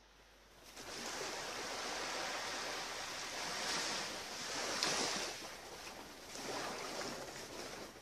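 Small waves lapping and washing onto a sandy beach, starting about a second in and swelling a few times as wavelets reach the shore.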